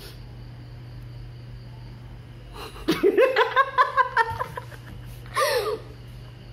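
A man and a boy burst out laughing about three seconds in, with a quick run of loud ha-ha-ha pulses lasting about a second and a half. A short, high laugh follows about two seconds later. Before the laughter there is only a steady low hum.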